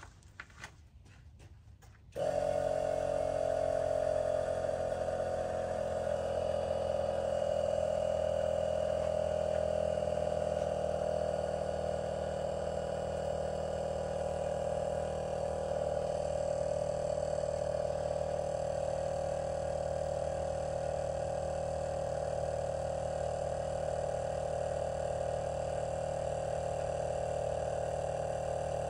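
Small portable air compressor switched on about two seconds in, then running steadily as it pumps up the AirLift air bags on a heavily loaded pickup's rear suspension.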